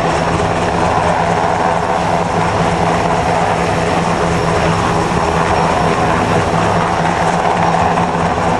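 Coast Guard MH-60 helicopter's rotor and turbine engines running, a loud, steady drone with a constant low hum.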